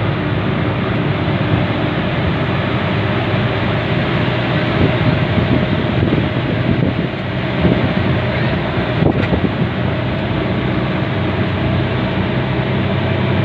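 Steady engine hum and running noise of a vehicle, heard from on board as it moves. There is one sharp click about nine seconds in.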